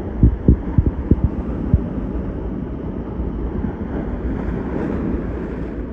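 Ocean waves surging and splashing over mussel-covered jetty rocks, a steady wash of surf. Wind buffets the microphone with low thumps during the first couple of seconds.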